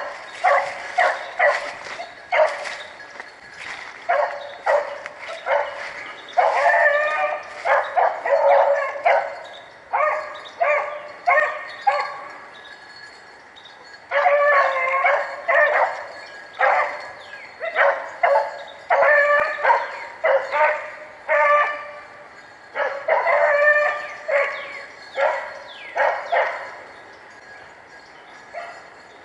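Rabbit-hunting dogs baying as they run a swamp rabbit's trail: repeated barking calls in bouts with short breaks, the barking stopping near the end.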